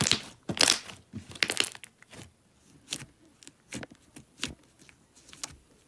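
Slime being squished and stretched by hand, giving irregular sticky clicks and crackles.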